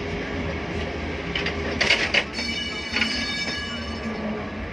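Lisbon electric tram running on its rails, heard from inside the car, with a steady low rumble. About two seconds in come a couple of sharp metallic strikes and then a brief high ringing that fades.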